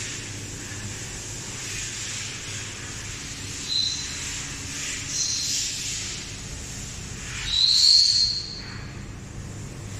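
Steady low hum and hiss, with three short high whistles; the last and loudest rises slightly and is held for about a second, about three-quarters of the way through.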